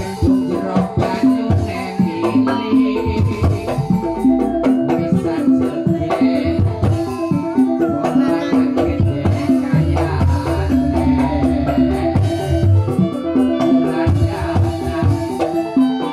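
Live Banyumasan lengger dance music: a kendang hand drum beating out the rhythm under an electronic keyboard playing a short repeating melody.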